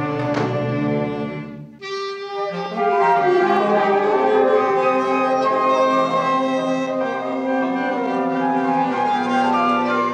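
A school orchestra playing a piece of orchestral music: bowed strings with brass, and flute, clarinet and trumpet among the winds. It breaks off briefly about two seconds in, then starts again on new notes.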